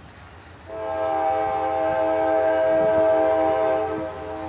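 CSX freight locomotive's multi-chime air horn sounding one long blast of several notes at once. It starts under a second in and eases off near the end.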